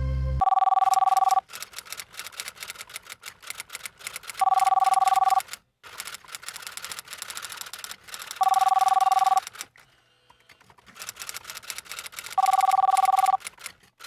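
Telephone ringing: four rings, each about a second long of two warbling tones sounded together, one every four seconds. A faint crackly clicking runs between the rings.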